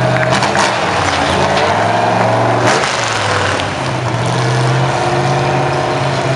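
Heavily modified Massey-Harris 30 pulling tractor's engine running and revving, its pitch rising and falling, with a few sharp cracks.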